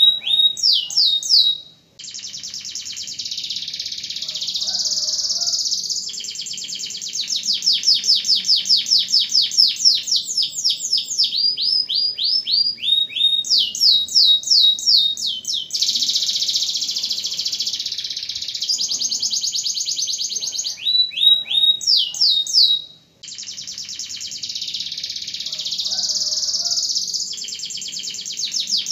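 Domestic canary singing a long, loud song of rapid trills, rolls and runs of fast repeated sweeping notes, pausing briefly twice.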